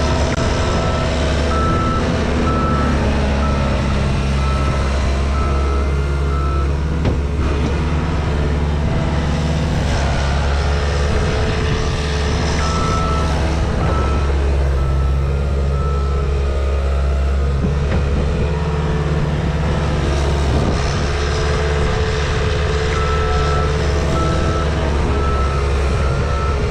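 Cat skid steer's diesel engine running steadily while its backup alarm beeps in three spells as the machine reverses.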